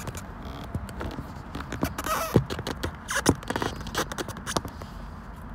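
Handling noise close to the microphone: irregular rustling, crinkling, scrapes and small knocks, loudest about two and a half and three and a half seconds in.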